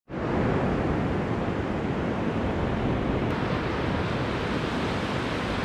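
Surf breaking on a sandy beach, a steady rush of waves, with wind buffeting the microphone.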